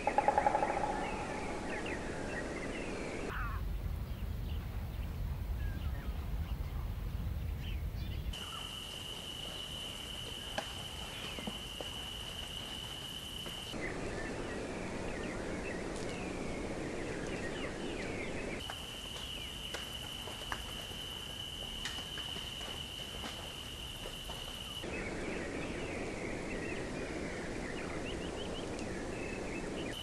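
A string of outdoor nature recordings that changes every five seconds or so: small birds chirping over a background hiss, a stretch of low rumble, and twice a steady high-pitched buzz that holds one pitch for several seconds.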